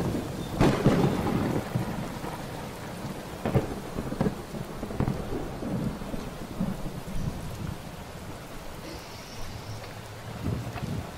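Rain falling steadily, with thunder rumbling underneath. The loudest peals come about a second in and again about three and a half seconds in.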